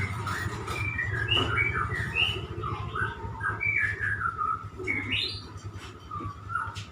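A murai songbird singing a varied run of clear whistled notes and quick rising and falling phrases, over a steady low hum.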